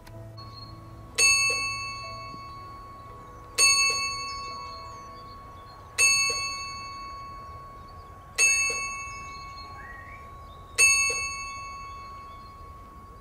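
A small chapel bell tolling five slow, evenly spaced strokes about two and a half seconds apart. Each stroke rings on and fades before the next.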